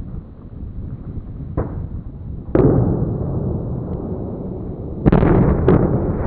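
Explosive demolition blasts: a sharp bang about two and a half seconds in and a louder one about five seconds in, each followed by sustained rumbling noise, with smaller sharp pops near the end.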